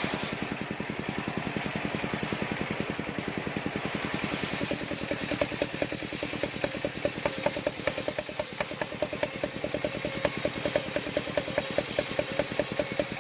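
Engine idling steadily with an even putter. From about five seconds in, a regular clicking rattle of about four strokes a second runs along with it.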